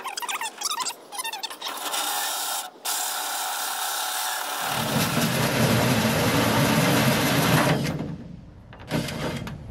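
Power drill with a hole saw cutting through an acrylic door window, a steady whirring grind that takes on a heavier low rumble about halfway through and stops about two seconds before the end. A single click follows.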